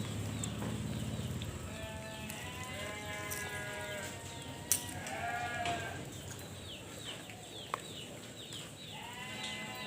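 Livestock bleating in several wavering calls, one starting about two seconds in, another about five seconds in and a last near the end, with a couple of sharp clicks in between.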